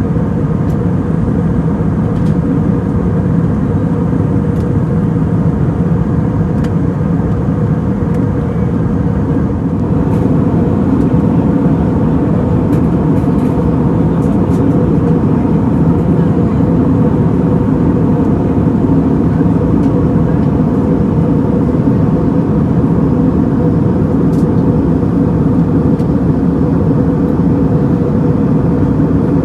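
Steady in-flight cabin noise of an Airbus A320neo with CFM LEAP-1A engines: an even rumble of engines and airflow with a faint steady hum in it, getting a little louder about ten seconds in.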